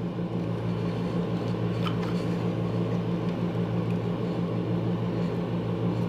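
A steady low hum with a few even tones, with a couple of faint small clicks about two seconds in.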